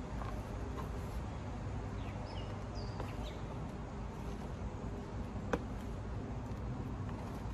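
Steady outdoor background noise with a low rumble, a few faint bird chirps two to three seconds in, and a single sharp click about five and a half seconds in.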